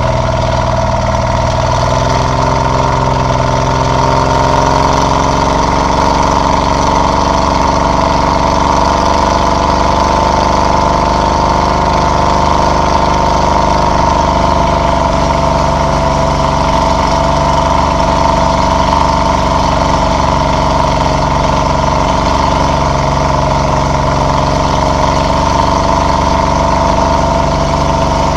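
Engine of the Whoopie Cat, a tracked snow vehicle, running steadily as it drives across snow: an even drone with a constant whine, its pitch settling in the first two seconds.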